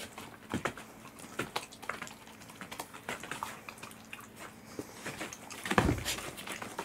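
Corgis chewing pieces of saury taken from a hand: a run of short wet smacks and crunches, with a louder thump about six seconds in.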